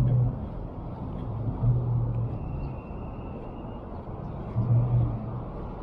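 Downtown street traffic noise: a steady low rumble of vehicles, swelling three times as vehicles pass or pull away, with a faint thin high whine about halfway through.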